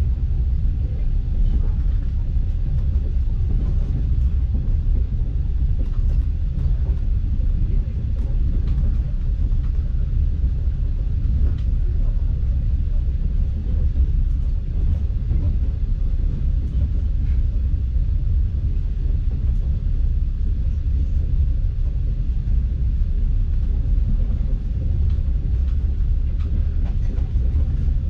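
Steady low rumble of a passenger-train carriage running along the track, heard from inside the carriage, with faint scattered clicks and rattles.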